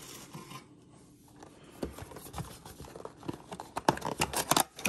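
Hands handling a small cardboard trading-card box: quiet at first, then from about two seconds in a run of taps, clicks and scrapes of cardboard against fingers and table, loudest near the end.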